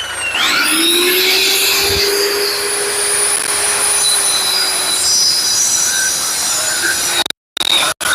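Concrete saw cutting a concrete floor: a loud, continuous grinding with a high, shrill whine. The blade's note rises over the first second, then holds steady, and the sound cuts out briefly twice near the end.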